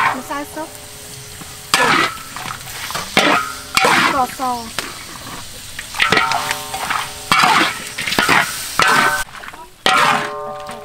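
Metal spatula scraping and turning chicken pieces in a large steel wok over a steady fry sizzle. Each scrape makes the wok ring, with strokes coming irregularly about once a second.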